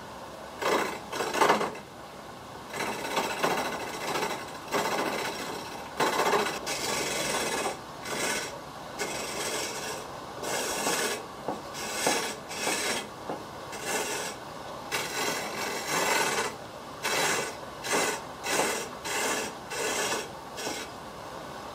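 A chisel cutting a hardwood wrench handle spinning on a foot-powered treadle lathe. It goes in a run of short scraping passes, coming at about one a second in the second half.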